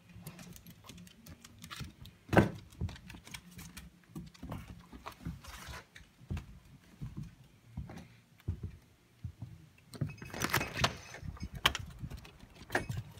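Footsteps and scattered small knocks and clicks moving across a wooden floor, then a quick cluster of metallic clicks and rattles about ten seconds in as a door is unlatched and opened.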